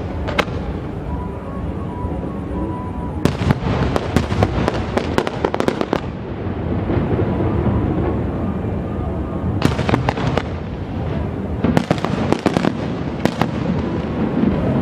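Fireworks going off in clusters of rapid sharp cracks and crackling, four volleys over a steady low rumble.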